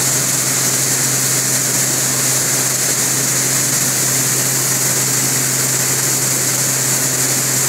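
Grain-cleaning machinery running steadily, a five-fan gravity separator's blowers among it: a loud, even rush of air with a steady low hum underneath.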